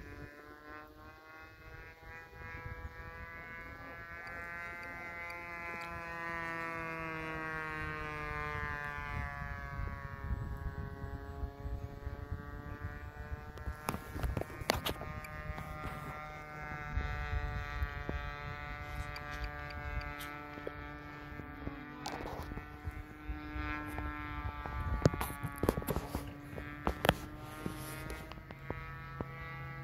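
The 30cc gas engine of a radio-controlled Dauntless model plane buzzing in flight, its pitch slowly falling and rising several times as the plane moves about the sky. Several sharp clicks on the microphone come in the second half, the loudest near the end.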